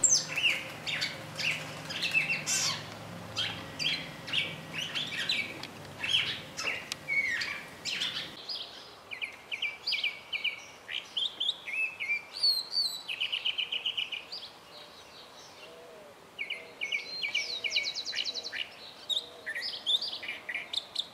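Several wild birds calling and singing: a busy mix of short chirps at first, then repeated short, rapid trills, with a brief quieter spell about two thirds of the way through.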